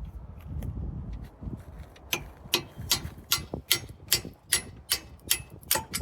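Steel quick-attach lever parts clicking and clinking as they are handled, a quick run of sharp metallic clicks, about two or three a second, starting about two seconds in after a low rumble of handling noise.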